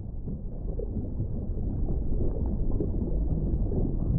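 Underwater ambience sound effect: a deep, muffled rumble that swells in at the start and then holds steady, with a couple of faint short blips.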